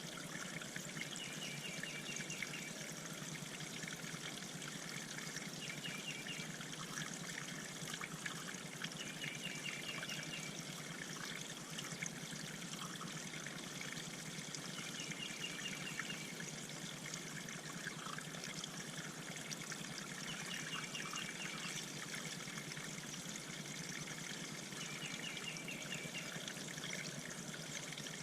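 Water trickling steadily into a backyard bird pond. Over it a songbird repeats a short, quick series of notes about every five seconds.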